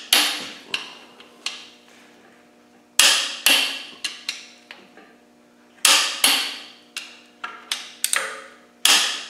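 Torque wrench pulling the main bearing cap bolts of a 300Tdi block to 133 Nm, giving sharp metallic clicks and clunks with a short ringing tail. A loud click comes about every three seconds, with lighter clicks between.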